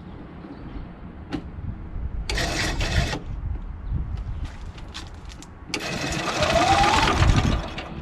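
Honda GX340 engine being cranked over twice without firing: a short burst of cranking about two seconds in, then a longer one with a rising whine near the end. It cannot catch because the fuel valve is shut off.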